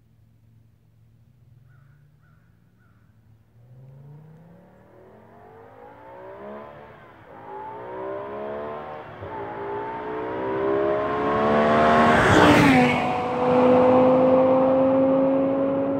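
2008 BMW M6's V10 engine accelerating hard at wide-open throttle toward the microphone, its pitch climbing and dropping back at each upshift. It is loudest as the car passes about twelve seconds in, where the pitch falls suddenly, then it holds a steadier, fading note as it drives away.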